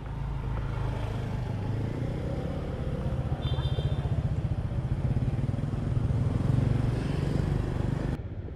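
Petrol motorbike engine running close by, a steady low putter that grows a little louder and then cuts off suddenly near the end. A short high beep sounds a few seconds in.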